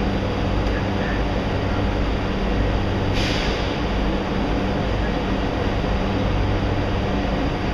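Washington Metro railcar standing at the platform with its doors open, its equipment giving a steady low hum, with a short hiss of air about three seconds in.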